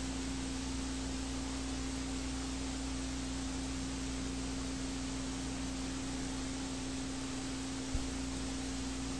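Steady low single-pitched electrical hum over an even hiss, with one brief click about eight seconds in.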